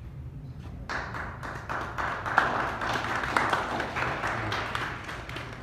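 Students clapping in applause, starting about a second in and going on steadily as many quick overlapping claps.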